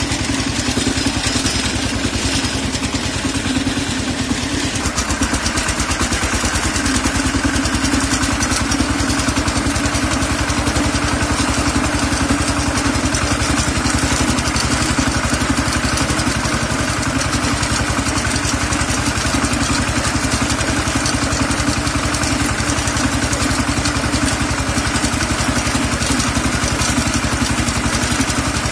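Kentavr MB 1010DE-6 heavy walk-behind tractor's single-cylinder diesel engine running steadily as the machine drives along, heard from the operator's seat. Its tone shifts slightly about five seconds in.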